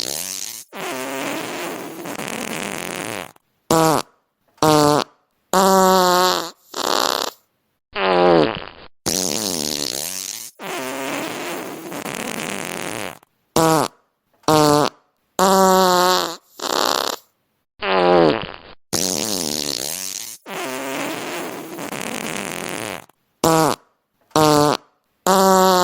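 A rapid string of fart sound effects, one after another with short silent gaps. Some are short, with a wavering, sliding pitch; others are long and airy, lasting a few seconds each.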